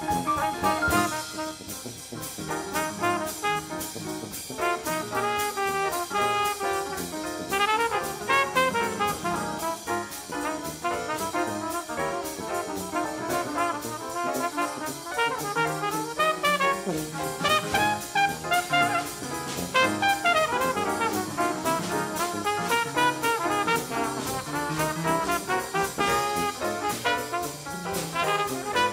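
Jazz music with brass instruments over a steady beat.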